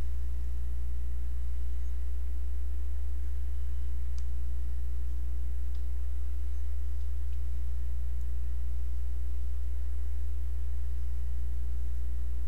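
Steady low electrical hum, unchanging throughout, with a few faint ticks in the middle.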